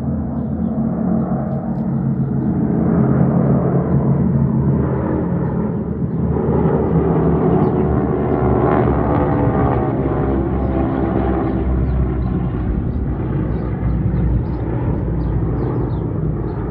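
T-6 Texan trainers flying past in formation, their Pratt & Whitney R-1340 Wasp radial engines giving a loud, steady drone. The sound swells and shifts in pitch around the middle as the aircraft pass.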